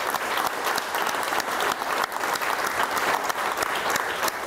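Applause from a small group of people, many hands clapping steadily.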